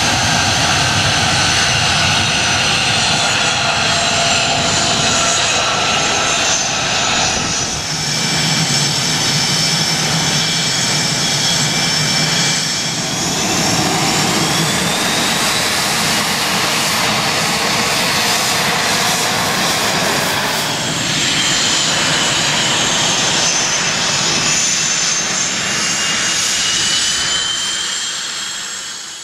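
Taxiing jet fighters, among them an F-35A with its single F135 turbofan: the engines' high whine at low power, several whistling tones that drift up and down in pitch over a steady rush. The sound changes abruptly about 8 and 21 seconds in, and fades out at the very end.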